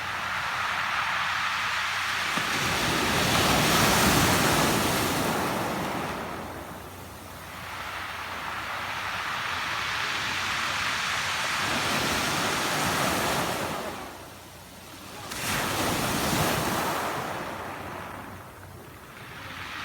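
Sea waves breaking on a pebble beach and washing back, the receding water hissing and rattling over the stones. The surf swells and ebbs in several waves, the loudest about four seconds in.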